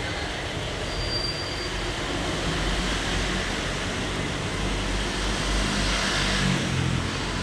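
Vehicle noise: a steady rumble and hiss that swells from about a third of the way in to its loudest near the end, then eases off, as of a vehicle passing.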